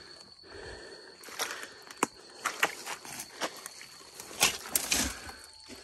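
Footsteps on dry leaf litter and twigs: a run of irregular crunches and crackles.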